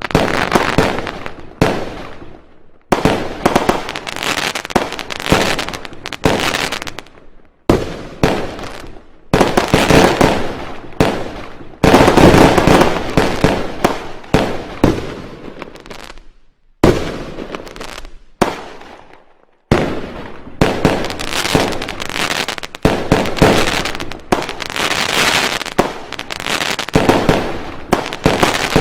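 Fireworks going off in a dense barrage: loud bangs in quick succession with crackling tails, broken by a few short pauses.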